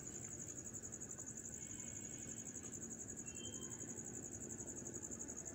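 Faint, steady, high-pitched insect trill, pulsing rapidly and evenly, typical of a cricket, over a low background hiss.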